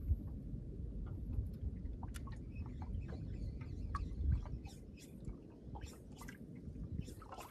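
Small waves lapping and slapping against a boat's hull in irregular light splashes, over a steady low rumble of wind on the microphone.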